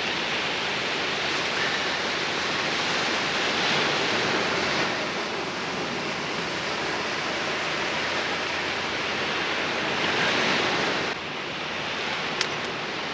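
Steady wash of surf from waves breaking on the beach, swelling around four seconds in and again around ten seconds, with a faint click near the end.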